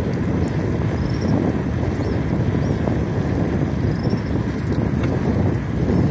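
Wind buffeting the microphone of a bike-mounted camera while riding a bicycle along an asphalt road: a steady low rumble of wind mixed with tyre and road noise.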